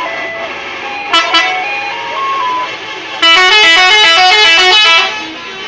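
Bus telolet horn, a multi-trumpet melody horn: two short blasts about a second in, then a loud run of rapidly changing notes for nearly two seconds, over a quieter tune of single notes.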